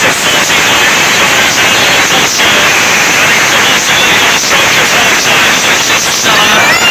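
Loud, steady hiss of static-like noise with a few brief dips, and faint wavering tones near the end.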